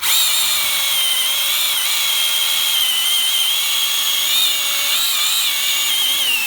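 Small battery-powered chainsaw with a 7-inch bar, cutting through a tree trunk about 12–15 cm thick. It makes a steady high-pitched whine that starts suddenly, with slight wavering in pitch as the chain meets the wood.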